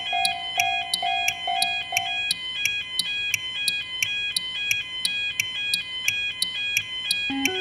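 Japanese railroad crossing warning bells, electronic 'kan-kan', ringing in a rapid, even rhythm of short high tones that alternate between two pitches, laid into a music track. A lower pulsing tone sounds for the first couple of seconds, and a lower melody comes in near the end.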